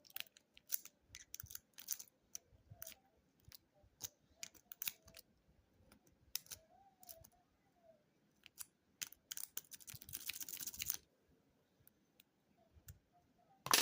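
Metal single-peak lock rake scraping and clicking against the pin stack of a Master Lock No. 5 padlock as it is raked: scattered sharp ticks, with a quicker run of scraping clicks about nine to eleven seconds in.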